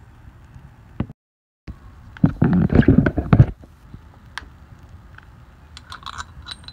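Close handling noise: a burst of loud rubbing and knocking against the microphone lasting about a second, after a brief dropout, then scattered light clicks as shock-mount parts are handled.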